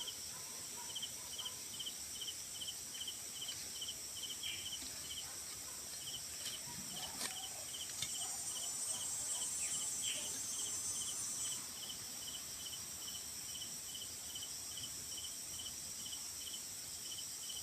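Outdoor insect chorus: a cricket chirping steadily in regular pulses about twice a second over a continuous high-pitched insect drone that swells for a few seconds midway. A few faint knocks sound about seven seconds in.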